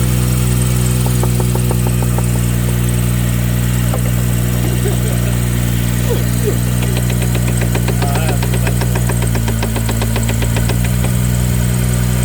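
BMW 340i's B58 turbocharged 3.0-litre inline-six, fitted with a CTS intake, idling steadily just after start-up. The idle sags briefly about ten seconds in, and a fast light ticking is heard over it in the second half.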